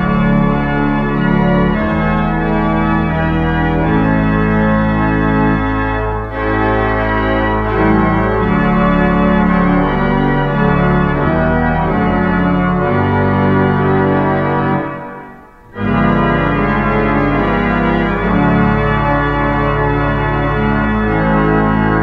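Church pipe organ playing a voluntary of sustained, full chords over a moving bass line, with one short break about fifteen seconds in before it goes on.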